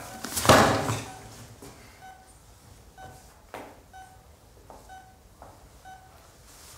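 Hospital patient monitor beeping steadily, one short tone a little more than once a second, pacing the bedridden patient's heartbeat. About half a second in, a loud, brief rush of breath-like noise stands out over it.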